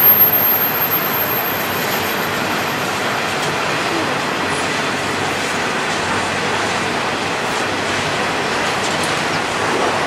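A train passing, a steady noise of wheels on rail that holds level throughout.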